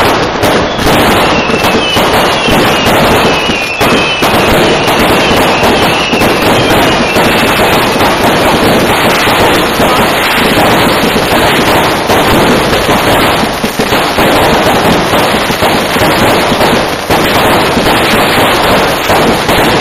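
Dense barrage of consumer fireworks: rockets and firecrackers going off in rapid, continuous bangs and crackling. Several whistling rockets slide down in pitch during the first seven seconds or so.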